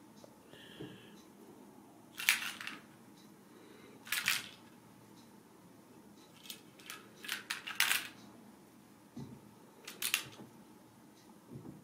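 Hollow plastic cat-toy ball on a string clattering in short, sharp rattles as kittens bat at it with their paws, a few separate knocks with a quick run of clicks around the middle.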